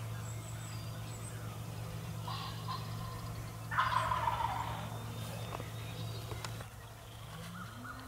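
Wild turkey gobbling: a loud rattling gobble about four seconds in, after a fainter one a couple of seconds earlier.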